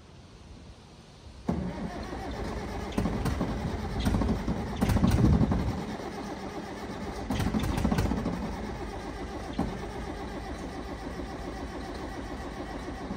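Caterpillar 955 track loader's engine starting: it catches suddenly about a second and a half in, surges twice, then settles into a steady run.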